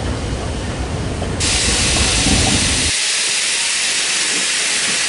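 Class 01 steam locomotive 01 202 venting steam with a loud, steady hiss that starts abruptly about a second and a half in. Before it comes a low rumble of a train on open track.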